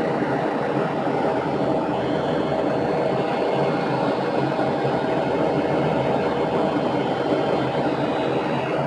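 Steady drone of a jet airliner in flight, heard inside the cabin: engine noise and rushing air, with a faint steady hum.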